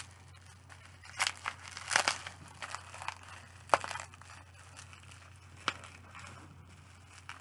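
Plastic bubble-wrap packaging crinkling and rustling in irregular bursts as it is handled and unwrapped.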